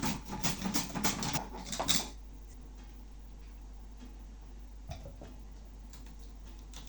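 Knife slicing through a raw onion: a quick run of sharp cuts, about four a second, for about two seconds. After that come two faint clicks a little after halfway.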